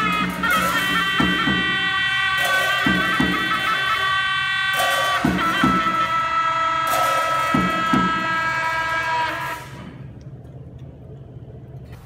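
Tibetan Buddhist ritual music: gyaling horns sounding shrill, held notes over beats of a large handled frame drum, the beats often coming two close together, with a few crashes. The music stops about nine and a half seconds in, leaving a faint low hum.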